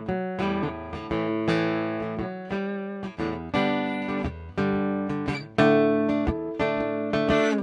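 Guitar strumming a series of chords, each one ringing out and fading before the next, as the instrumental intro to a slow country song.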